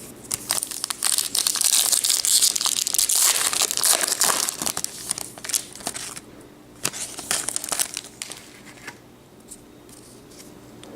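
Plastic wrapper of a Topps baseball card pack crinkling and tearing as it is opened, with dense crinkling for about five seconds, then a few scattered crinkles.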